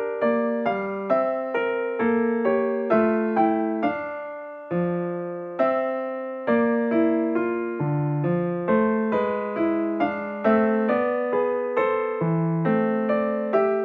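Background music: a soft electric piano playing a gentle melody of struck notes, a few notes a second, each decaying.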